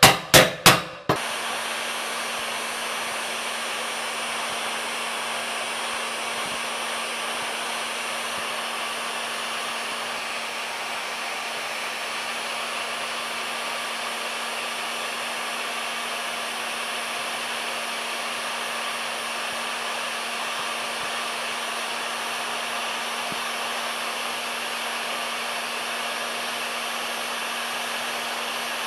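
About four quick hammer blows on a hand impact driver in the first second. Then a heat gun runs steadily, a constant rush of air with a steady hum, blowing hot air onto a brake-disc bolt to free it.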